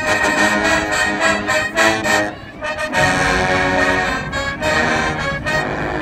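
Marching band brass with sousaphones playing loud held chords, with a brief drop about two and a half seconds in before a new full chord comes in.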